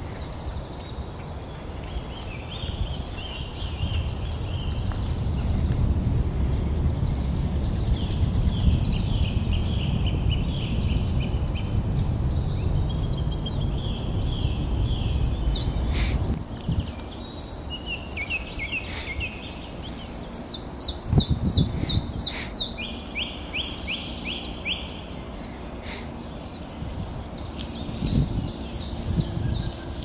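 Several woodland birds singing, short phrases and fast trills overlapping. A low rumble runs under the song for the first half and cuts off suddenly, and a few low thumps come near the end.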